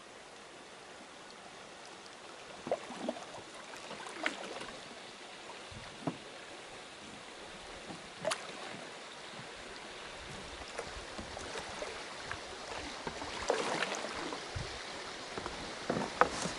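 Water of a shallow stream running around a canoe as it is paddled downstream, with scattered sharp knocks and clunks against the canoe hull, a cluster of them near the end.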